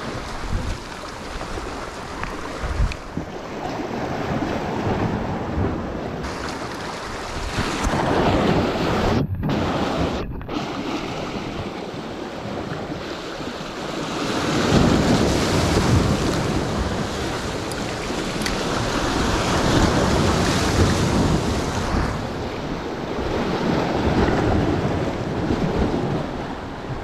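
Sea waves breaking and washing over shore rocks just below, swelling and ebbing in several surges.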